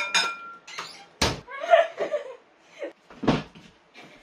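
Two sharp knocks about two seconds apart, like kitchen cupboard doors or drawers banging shut, with a brief voice between them.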